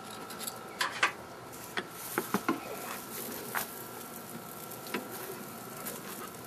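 A charcoal grill's metal lid being raised, with scattered light clicks and knocks of metal handling and a faint steady high tone.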